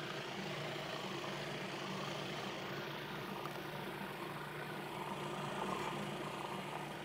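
Food processor running steadily, its motor blending a thick edamame hummus.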